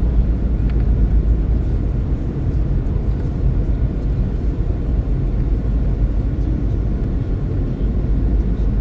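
Steady road noise heard inside a moving car's cabin: tyre and engine rumble from driving on the freeway.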